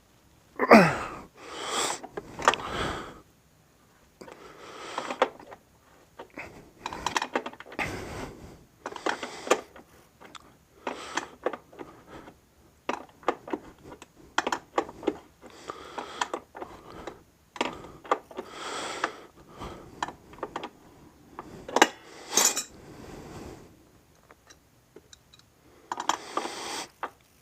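Irregular metallic clinks and scrapes of an adjustable wrench working a motorcycle's rear axle nut loose and off.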